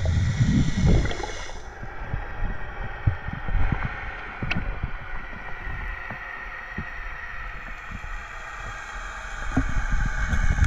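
Underwater sound picked up by an action camera in its waterproof housing while freediving: a steady muffled hiss with scattered faint clicks. Heavier low water sloshing comes in the first second or so and again near the end.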